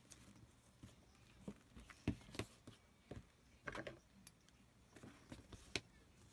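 Faint handling sounds of hand-stitching a leather strap: scattered soft taps, rustles and clicks of needle, thread and leather, the sharpest about two seconds in and near the end.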